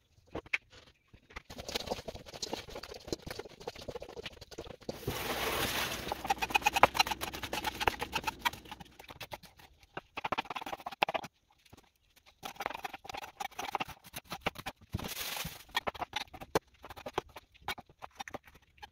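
A chef's knife cutting vegetables on a plastic cutting board: irregular taps and clicks of the blade hitting the board, with a denser, louder stretch of scraping and knocking about five seconds in.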